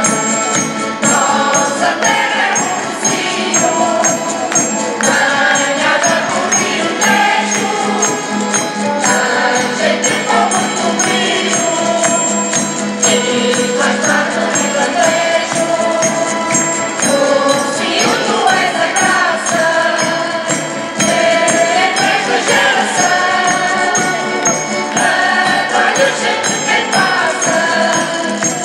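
Mixed choir of men and women singing a farewell song together, over instrumental accompaniment with a steady beat.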